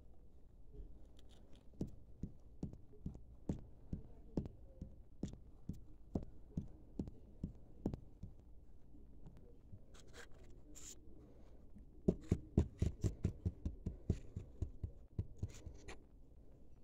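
Small plastic LEGO figures tapped along a studded LEGO baseplate: light, separate taps about two a second, then from about twelve seconds in a quicker, louder run of taps as the horse figure is brought on.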